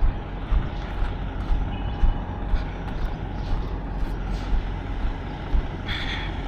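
Semi-truck engine running, a steady low rumble.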